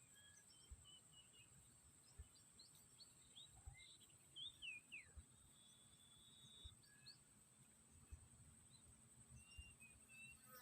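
Faint swamp ambience: a steady high insect drone with a held whistle-like tone, and scattered short bird chirps and downward-sliding whistles, busiest in the middle.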